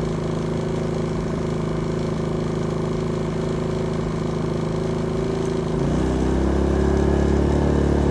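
Pulsar GX400BN inverter generator's engine running steadily on propane in eco mode. About six seconds in its speed picks up and it gets a little louder.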